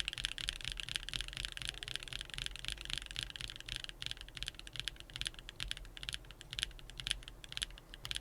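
Mechanical keyboard being typed on quickly: a dense, continuous run of key clacks from Strawberry Cheesecake Round 2 tactile switches.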